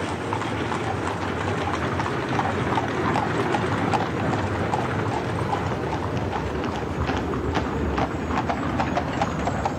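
Horse-drawn carriages passing: the overlapping, irregular clip-clop of several horses' hooves over the steady rumble of carriage wheels.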